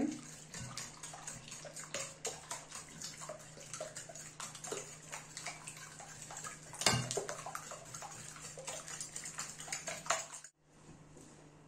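Fork beating raw eggs in a glass bowl: quick splashing strokes with the fork ticking rapidly against the glass, and one louder knock about seven seconds in. The whisking stops suddenly near the end.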